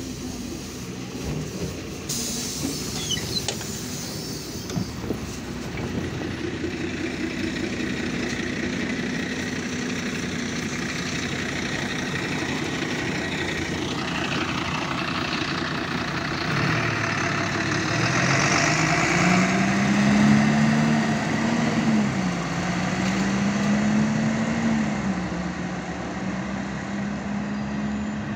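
MAN A74 Lion's Classic city bus: a short burst of air hiss about two seconds in, then its diesel engine running as the bus pulls away. From about halfway through, the engine note rises, drops, rises again and drops, the pattern of the automatic gearbox changing up.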